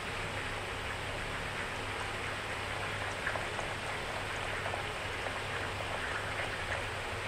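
Steady hiss of background noise with a low hum, and a few faint light taps and splashes as milk is poured from a carton into a plastic tub of flour and stirred.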